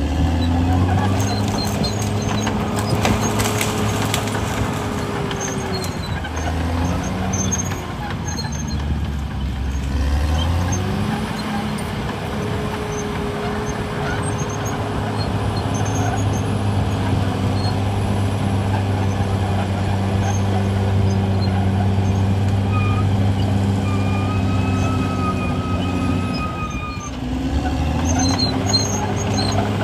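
Caterpillar D6R XL crawler dozer's diesel engine working hard as the dozer pushes earth, its pitch dropping and recovering several times as the load changes. A brief high squeal comes in about three quarters of the way through.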